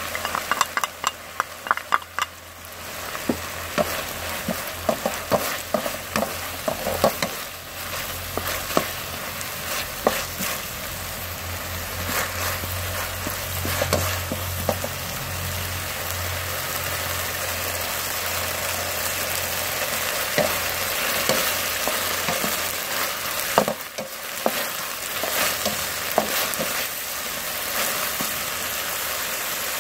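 Minced pork and carrot sizzling in an aluminium wok as a wooden spatula stirs and scrapes them, with frequent clicks of the spatula against the pan, thickest in the first several seconds.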